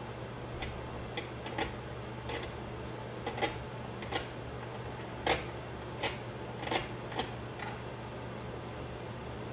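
Irregular light clicks and taps from small hard objects being handled, about a dozen in all, the loudest a little past halfway, over a steady low hum.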